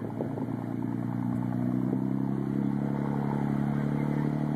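Motorboat engine running at a steady pitch, growing louder over the first couple of seconds and then holding.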